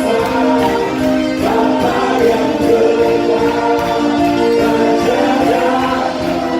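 Live gospel worship music: a choir singing a praise song over the band, in long held notes.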